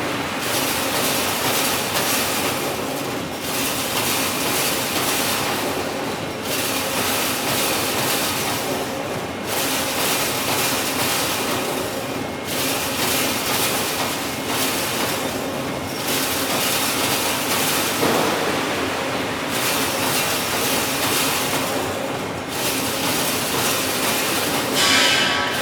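Wire fence-making machine running with a steady metallic clatter in a regular work cycle that repeats about every three seconds, with a sharper, higher burst just before the end.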